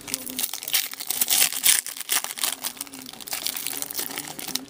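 Foil hockey-card pack wrapper being torn open and crinkled by hand, loudest about a second and a half in.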